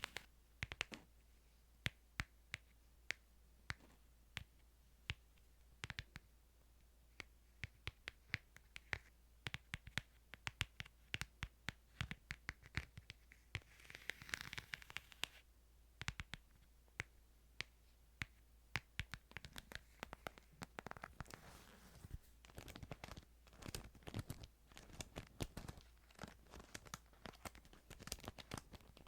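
Faint handling sounds from a Bible: scattered sharp taps and scratches, with a short paper rustle about halfway through and denser scratching and crinkling near the end.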